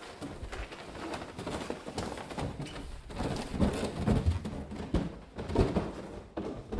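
Irregular heavy thumps, knocks and shuffling footsteps on wooden stairs as a limp body is hauled down into a cellar, the bumping loudest and closest together from about three to six seconds in.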